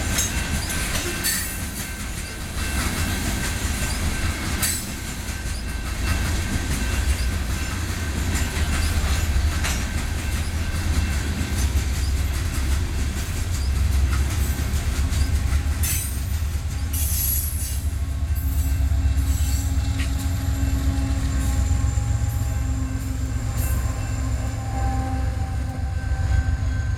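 Loaded coal train rolling past: steel wheels clack over the rail joints and squeal, over a steady low rumble. About halfway through, steady whines and hums join in.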